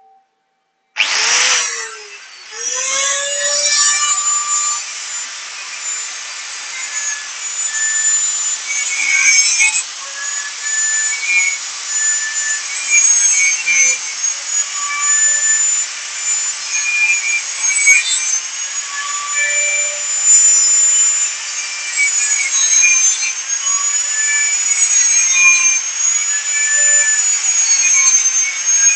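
Angle grinder starting up about a second in and then cutting through welded wire mesh, a loud high whine whose pitch dips and wavers as the disc bites into the wires.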